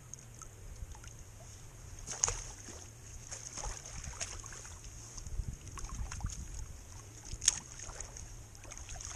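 Shallow lake water lapping and splashing around a wading angler as a big trout is held in the water, with low wind rumble on the microphone. A few short clicks and knocks from handling, the sharpest one near the end.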